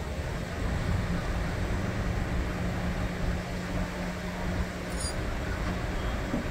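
Tilt-tray tow truck's engine running steadily in a low hum as its winch pulls a damaged car up the tilted tray, over a rumble of street traffic.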